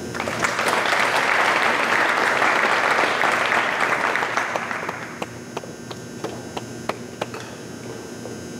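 A small audience applauding, starting suddenly, then thinning after about five seconds to a few scattered claps.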